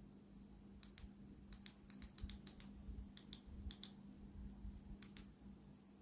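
Faint, light clicks tapping at an uneven pace, about fifteen of them in small clusters, over a faint steady hum.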